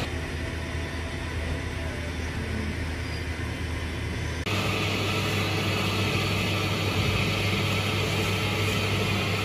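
Rice noodle machinery running with a steady electric hum. About four and a half seconds in the hum jumps louder and fuller.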